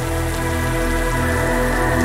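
Heavy rain falling steadily, mixed with soft ambient music of held synth tones over a low bass.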